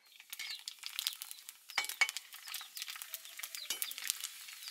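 Puris for pani puri deep-frying in hot oil in a wok, a steady sizzle full of small crackles, as a metal slotted ladle stirs them and clinks against the pan a few times, loudest about two seconds in.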